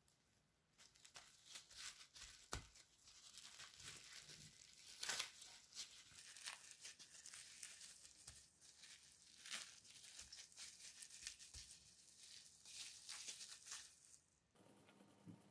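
Plastic cling wrap crinkling and crackling in many short, faint crackles as it is folded over a lump of cookie dough and pressed around it.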